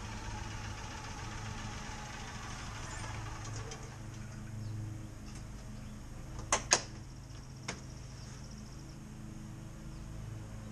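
Tracker OX400 utility vehicle's engine running low and steady at idle. A little past halfway there are two sharp clacks close together, then a third about a second later.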